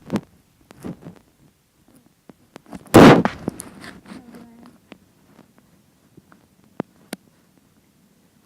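A loud thump about three seconds in, followed by a few light clicks and taps.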